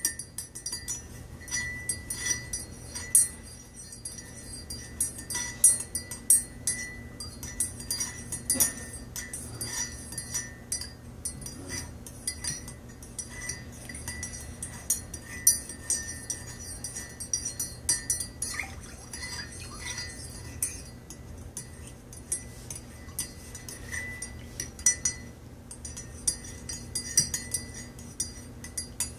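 Metal teaspoon stirring coffee in a ceramic mug, clinking against the inside of the mug over and over in quick, irregular strokes.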